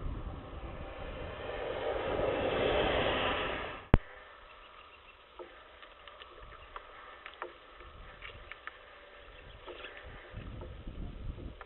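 Outdoor ambience at a bird feeder: a rushing noise swells and fades over the first few seconds, a single sharp click sounds about four seconds in, then faint short bird chirps over low wind rumble on the microphone.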